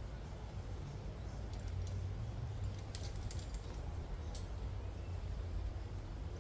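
Scattered light metallic clicks and jingles of climbing hardware (carabiners and quickdraws), a few short clusters, over a steady low rumble.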